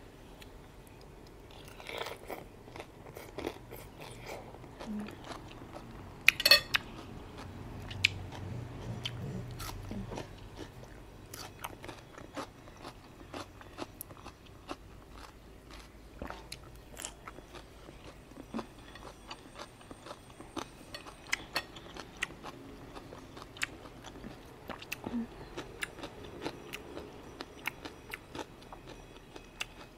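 A person eating a bowl of chicken noodle soup close to the microphone: chewing and biting with many small sharp clicks and crunches, and a louder clatter about six seconds in.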